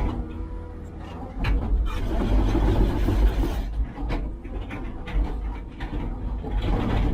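Heavy construction machine's diesel engine running with a deep rumble, with scattered knocks and clanks; it grows louder from about a second and a half in.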